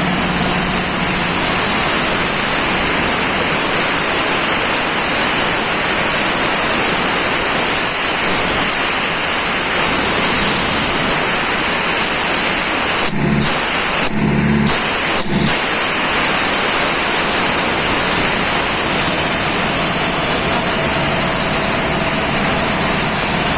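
Engine-driven air compressor, freshly top-overhauled, running loud and steady with a strong hissing noise. About halfway through, the hiss drops out briefly three times.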